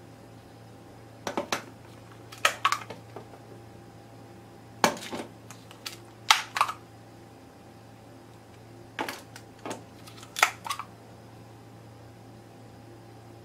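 Hard plastic parts of an egg mold clicking and snapping as they are handled and fitted into a round plastic base: six short clusters of sharp clicks a second or two apart.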